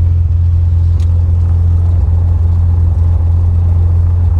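Single-engine propeller plane's engine and propeller running at a steady drone, heard from inside the cabin while the plane taxis on the ground.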